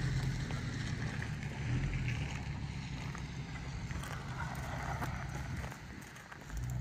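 Low, steady hum of a motor vehicle's engine that slowly fades, with wind on the microphone.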